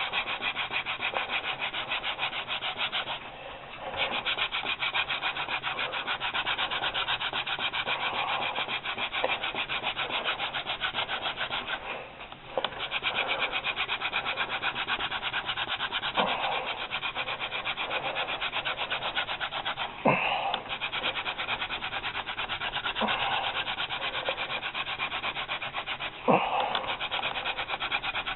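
Hand-drill friction fire: a wooden spindle twisted back and forth between the palms, grinding into a two-branch wooden baseboard in a fast, steady rubbing rhythm. The drilling breaks off briefly twice, and a few sharp wooden knocks come near the end; the board is being worked toward making smoke and an ember.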